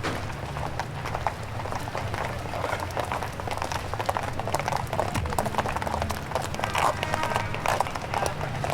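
Footsteps of many pedestrians walking on a city pavement, a dense run of shoe clicks over a steady low hum, with voices here and there. It is a 1960s New York street recording played from vinyl.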